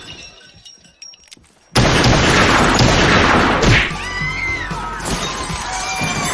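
A sudden loud crash with shattering glass about two seconds in, lasting about two seconds, followed by high wavering cries that rise and fall over music.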